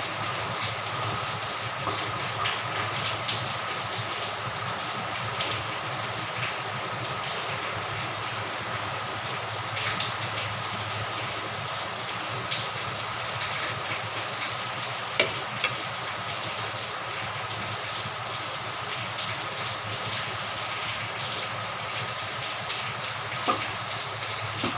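A pot of soup cooking on the stove: a steady bubbling, sizzling hiss with a few light clinks now and then.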